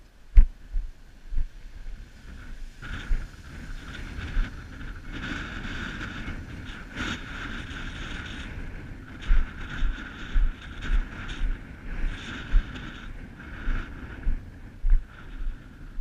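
Wind blowing across the camera microphone, swelling and easing, over repeated low thuds of footsteps on bare granite jolting the camera as its wearer walks.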